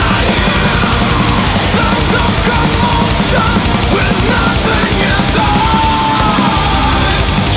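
Melodic black metal recording: distorted guitars over fast, steady drumming, with a lead melody line running above them.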